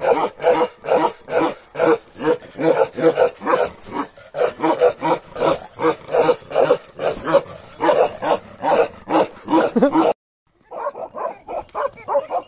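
A dog barking rapidly and without pause, about three barks a second. About ten seconds in, the sound cuts out for a moment and another dog's barking takes over.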